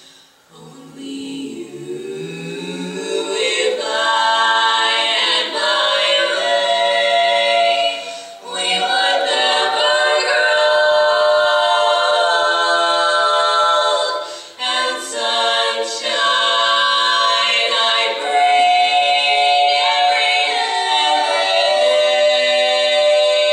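Women's barbershop quartet singing a cappella in four-part close harmony, holding chords. It starts soft and swells louder over the first few seconds, with two brief breaks between phrases.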